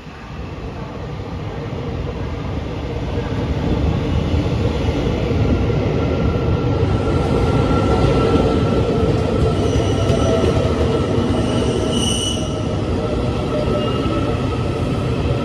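Taiwan Railways EMU800 electric multiple unit running into the station and passing close by as it slows to a stop, its noise building over the first few seconds. A steady whine runs under the wheel noise, and a short high squeal comes about twelve seconds in.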